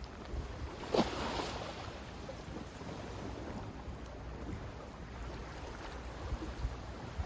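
Sea water lapping and splashing, with a low wind rumble on the microphone; one louder splash about a second in.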